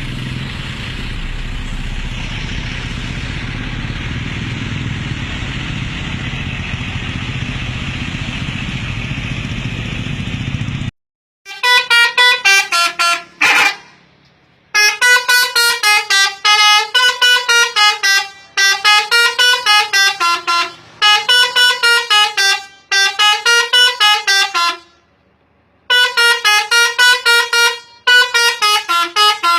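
A steady rumbling noise, then, after an abrupt cut about eleven seconds in, a telolet multi-tone musical horn playing a wavering, up-and-down tune in repeated phrases a few seconds long with short pauses between them.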